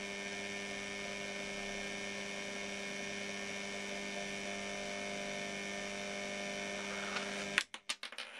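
Electric drive motor of a demonstration turntable running at speed, a steady hum that cuts off suddenly near the end, followed by a few sharp clicks.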